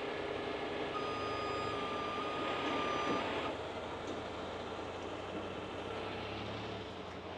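Heavy rotator tow truck with its diesel engine running steadily to drive the boom's hydraulics. A steady high tone comes in about a second in and holds for about two seconds, with brief breaks, then stops.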